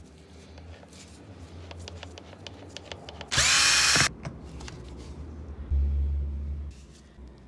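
Makita 9558HN angle grinder switched on briefly: its motor whines quickly up to speed, runs for under a second and is switched off. Clicks of handling come before it, and a loud low hum follows about two seconds later.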